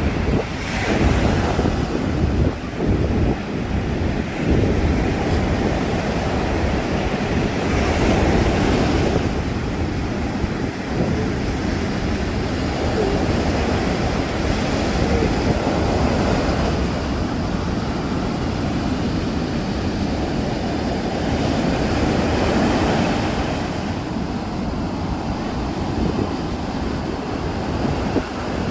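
Sea waves breaking and washing up on a sandy beach, a continuous surf with a bright surge of breaking water every several seconds. Wind rumbles on the microphone underneath.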